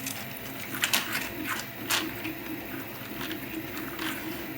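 A few light clicks and taps, a close double click about a second in and another about two seconds in, with fainter ones later, over a steady low hum.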